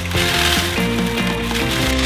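Background music with a pulsing bass and a melody of held synth notes.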